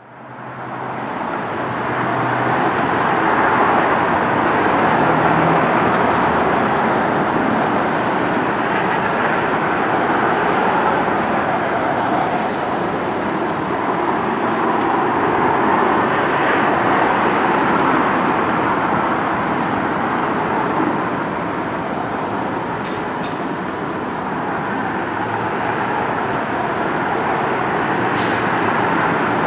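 Steady road traffic noise, a constant even rush that fades in over the first couple of seconds.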